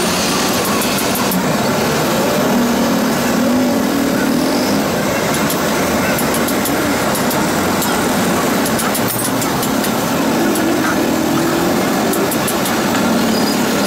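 Gas torch burning with a steady rushing hiss as its flame is held on a lead-acid battery's lead intercell strap to melt it.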